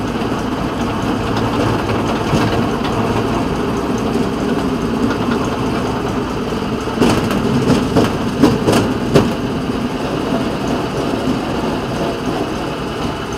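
Small engine of a railroad motor car (speeder) running steadily as it rolls along the track, with a few sharp clicks a little past halfway.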